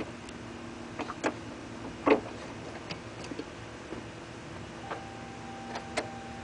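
A few scattered light clicks and ticks, the loudest about two seconds in, over a faint steady hum.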